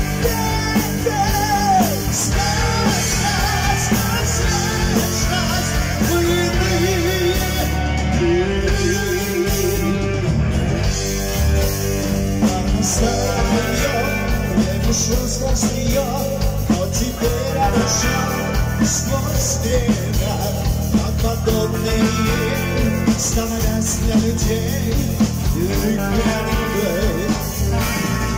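Live heavy metal band playing a song: a male singer sings over distorted electric guitar, electric bass and drums.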